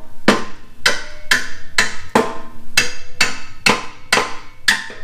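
Hammer tapping a keeper onto a metal pivot pin: about ten sharp metallic strikes, roughly two a second, each ringing briefly.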